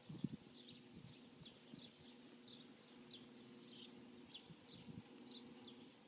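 Quiet outdoor ambience: a small bird chirping faintly, short high chirps about twice a second, over a faint low hum. A few soft knocks come just at the start.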